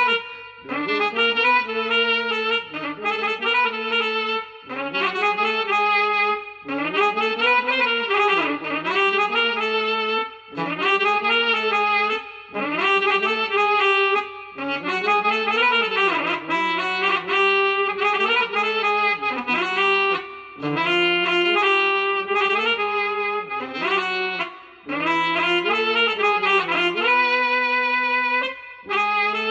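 A single saxophone- or trumpet-like wind instrument playing a solo melody in short phrases with brief breaks between them, over a faint steady low backing tone.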